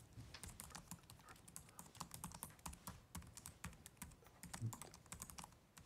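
Faint computer keyboard typing: a quick, irregular run of light key clicks.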